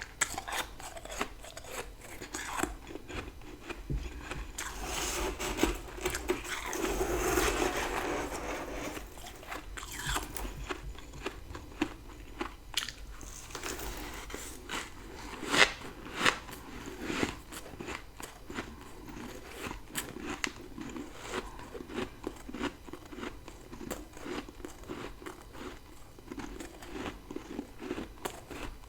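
Close-miked crunching and chewing of powdery freezer frost grown with a humidifier, taken in big bites: a run of sharp, crackly crunches, denser and louder for a few seconds early on, with one especially loud crunch about halfway through.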